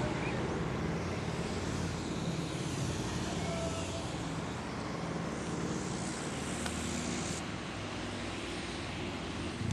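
Steady outdoor background noise with a low hum, like distant road traffic. Right at the very end, the Elektror L1/F2 electromechanical siren begins to spin up with a rising low tone.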